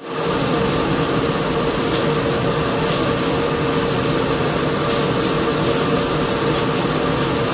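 Champ Fond spindle shaper with its power feeder running steadily, not yet cutting: a constant machine whir with a steady hum.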